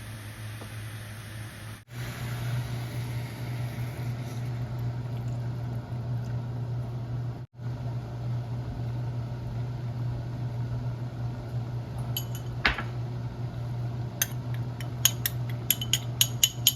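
Dishes and cutlery clinking in a kitchen over a steady low hum: one clink, then a quick run of about eight light clinks near the end.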